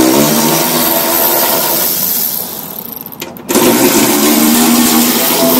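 Power ratchet whirring as it spins bolts out of a snowblower's bottom cover: a first run that fades off about two and a half seconds in, then a second run starting about a second later.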